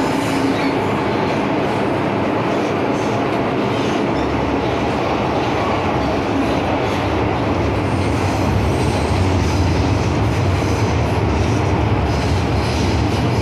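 An MTR M-Train running, heard from inside the passenger car: a steady rumble of wheels on rail and running gear. From about four seconds in, a deeper low rumble strengthens and then holds.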